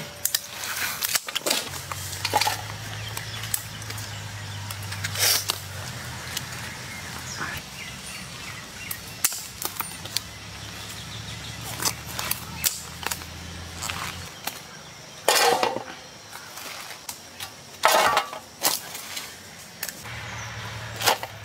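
Scattered clicks, knocks and scrapes as live spiny lobsters are handled and their shells cut, with a few louder knocks and a low hum that comes and goes.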